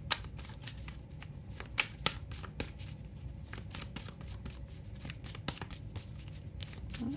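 Deck of oracle cards being shuffled by hand: an irregular run of card clicks and flicks, with a few sharper snaps near the start and about two seconds in.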